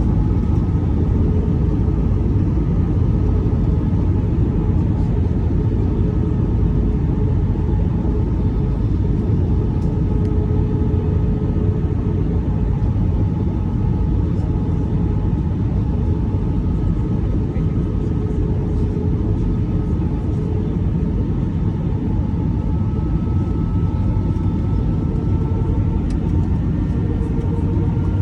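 Steady jet-engine drone heard inside an Airbus A319 cabin: a heavy low rumble with a few steady engine tones over it, one creeping up in pitch near the end.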